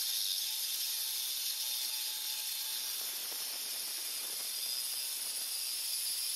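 DeWalt reciprocating saw cutting through the rusted steel bumper reinforcement bracket: a steady, high-pitched hissing rasp of the blade in the metal that holds an even level without a break.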